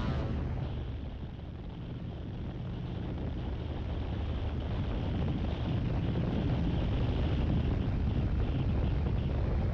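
Harley-Davidson V-twin motorcycle engine running steadily at cruising speed, with wind rushing over the microphone. The sound dips about a second in and then builds back up over the next few seconds.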